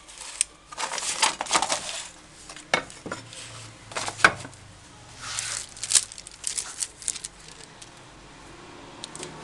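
Crinkling and rustling of an adhesive vinyl sticker sheet and its backing as it is handled, pressed down and smoothed by hand. A few sharper clicks and taps come in among the rustles, the loudest about four and six seconds in.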